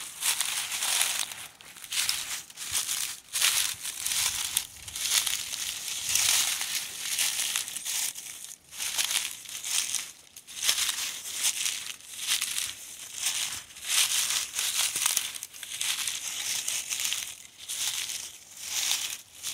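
Footsteps crunching through dry leaf litter on a wooded slope, a steady walking pace of about one step a second.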